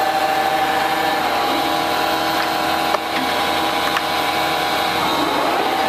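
Toolmex TUR 630M engine lathe running with its spindle turning at a medium-range speed: a steady headstock gear whine and hum. Two light clicks come about three and four seconds in.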